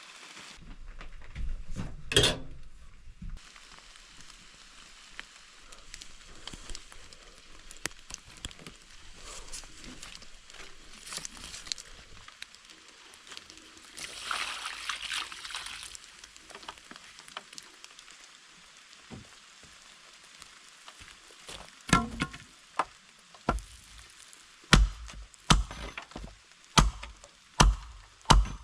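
Wood being chopped: sharp, evenly spaced strikes about once a second through the last several seconds, after a stretch of scattered knocks and handling noises.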